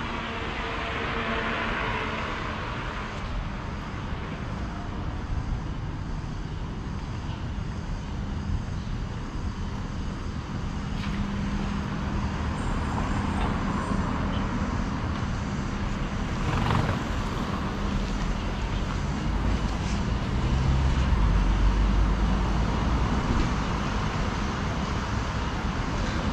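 City street ambience with motor traffic passing, and a louder low rumble from a passing vehicle near the end.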